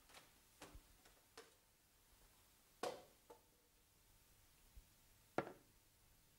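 A few short knocks and taps of objects being handled on classroom desks and chairs: light taps in the first second and a half, then two louder knocks about three seconds and five and a half seconds in.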